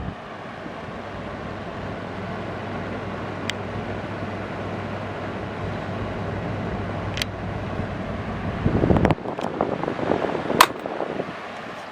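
Sekai DFN 1202 12-inch table fan running: a steady rush of air with a low motor hum that grows gradually louder, with a few sharp clicks. About three-quarters through the hum drops away and a louder irregular rattling clatter follows, with a sharp click.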